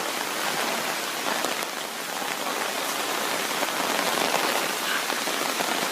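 Typhoon rain falling steadily, an even hiss of rain on the ground.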